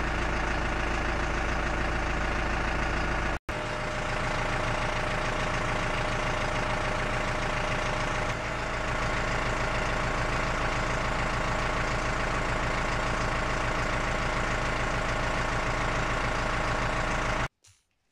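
Massey Ferguson 2435 tractor's diesel engine idling steadily. It drops out for an instant about three and a half seconds in and cuts off suddenly near the end.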